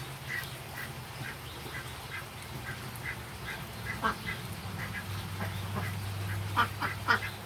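Short animal calls repeating two or three times a second, over a steady low hum.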